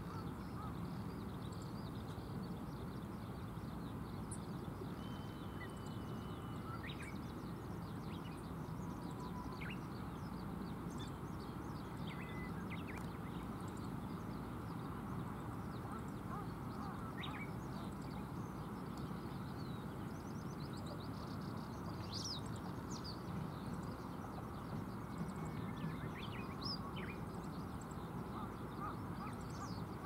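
Riverside ambience: the steady rush of a shallow, stony river, with scattered short, high bird calls and chirps over it and a couple of brief thin whistles.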